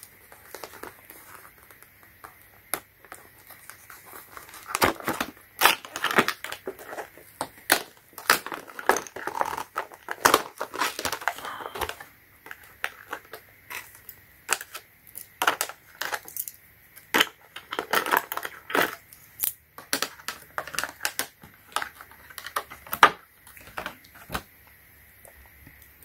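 Hands handling a snap ring plier set and its plastic packaging: irregular crinkling and rustling mixed with scattered clicks and taps.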